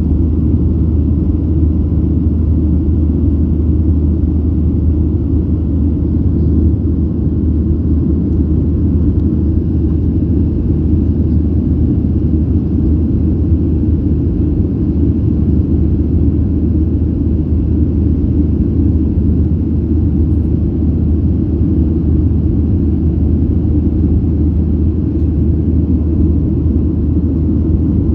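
Steady low cabin rumble of a Boeing 737-800 in flight just after takeoff, heard from a window seat beside the wing: its CFM56-7B engines and the airflow past the fuselage, even throughout with no change in pitch or level.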